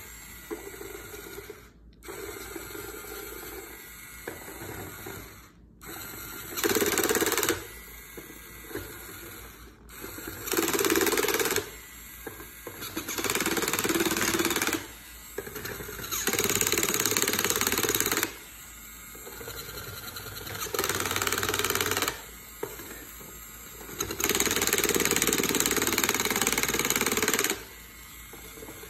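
Battery-powered toy drill whirring in repeated bursts, one to five seconds each, as it turns plastic bolts on a toy workbench. The longest run comes near the end.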